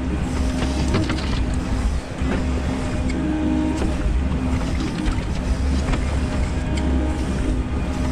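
Excavator's diesel engine running steadily under load with its hydraulics working as the bucket lifts and swings a load of soil, with a few short knocks.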